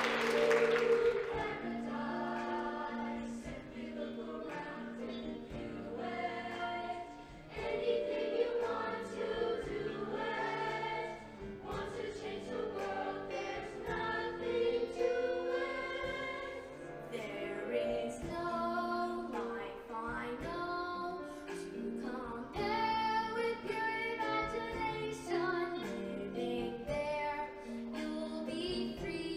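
High-school show choir singing in harmony over instrumental backing, a slower passage of held chords. Audience cheering dies away in the first moment.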